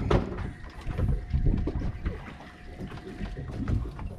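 Wind buffeting the microphone and water sloshing against the hull of a boat drifting at sea, with a few sharp knocks on the deck.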